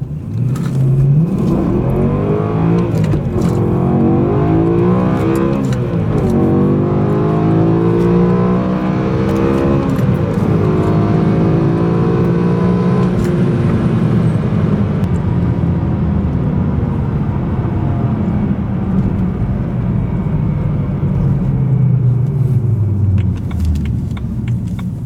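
BMW M3 E92's V8 engine at full-throttle acceleration, heard from inside the cabin. The revs climb and drop back with each upshift, three times in the first ten seconds. The engine then pulls more steadily at speed, and its pitch falls near the end as the car slows.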